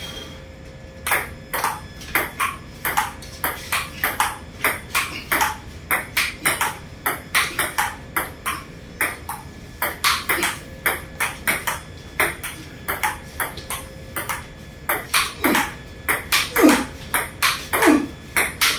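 Table tennis rally: the celluloid ball clicking in quick alternation off the rubber paddles and the tabletop, about three sharp clicks a second, beginning about a second in.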